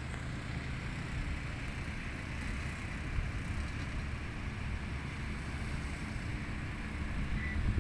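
Steady hum of road traffic: car engines and tyres on a city street, with no single vehicle standing out.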